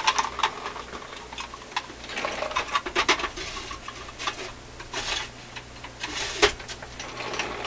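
Irregular clicks, taps and rustling of small electronic parts being handled and sorted at a workbench, with one sharper click near the end, over a faint steady electrical hum.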